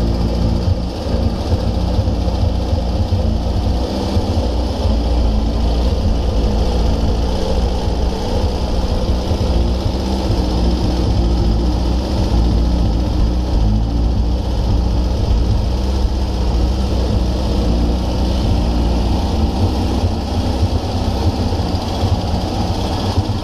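Freshly rebuilt 2180cc Volkswagen air-cooled flat-four aircraft engine running steadily on a test stand during its warm-up run, at an even speed without revving.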